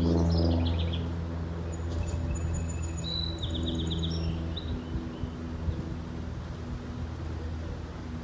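Wild birds chirping and trilling, over a steady low hum that fades out about halfway through.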